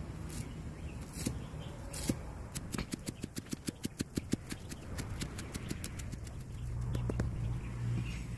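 Large kitchen knife chopping spring onions and coriander on a thick round wooden chopping block. A few single knocks come first, then a fast, even run of chops at about six a second. A low hum comes up in the background near the end.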